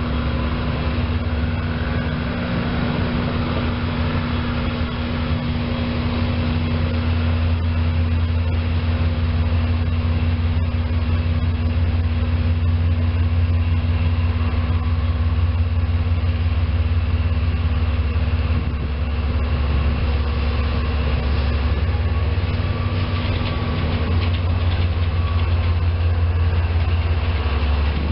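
Diesel switcher locomotive (SEPTA BL15 SPAX 50) leading a slow wire train, its engine making a steady, loud low drone that grows somewhat louder as it draws close. Near the end there is a clatter of wheels and cars as the equipment flatcars roll past.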